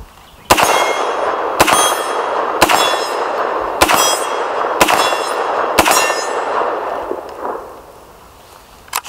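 Six rapid shots from a .50 Beowulf AR-15 rifle, about a second apart, each met at once by the clang of a steel swinging target. The steel rings on between shots and fades out over a couple of seconds after the last.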